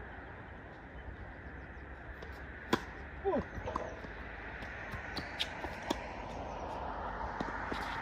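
Tennis ball struck by a racket: one sharp pop nearly three seconds in, followed by a few fainter ticks and knocks later on, over a steady low rumble.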